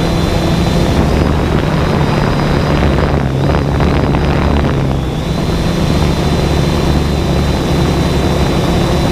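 A camera drone's electric motors and propellers hum steadily in flight, heard from the camera mounted on it, with a few steady low tones and a thin high whine over a rushing hiss.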